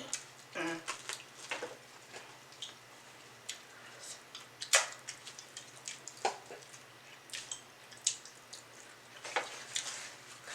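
Close-miked crunching and chewing of crispy pan-fried chicken wings: scattered crisp crackles and mouth clicks, the sharpest about five seconds in and a cluster near the end, over a low steady hum.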